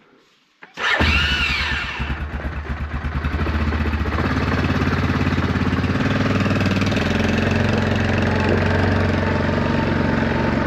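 ATV engine starting about a second in, with a brief rise and fall in pitch as it catches, then running steadily.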